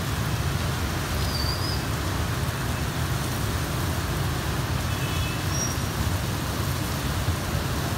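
Steady wash of motorbike and car traffic on a rain-soaked road, with rain falling: tyres hiss through standing water over a continuous low rumble of engines.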